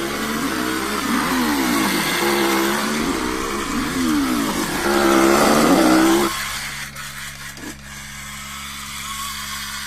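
Chainsaw revving over and over, its pitch sweeping up and down, then dropping to a quieter steady run about six seconds in.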